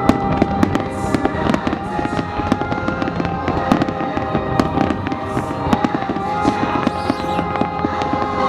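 Fireworks display: a dense, continuous run of bangs and crackling, many reports a second with no pause.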